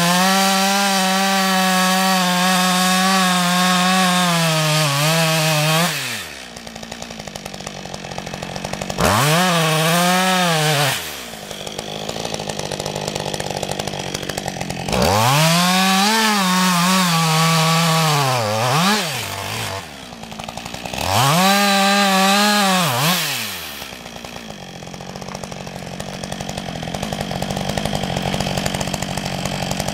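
Husqvarna 562 XP single-cylinder two-stroke chainsaw cutting into a dry ash log at full throttle for about six seconds, then dropping to idle. It is revved up again three times for a few seconds each, the pitch rising and falling with each rev-up, and idles steadily between them and near the end.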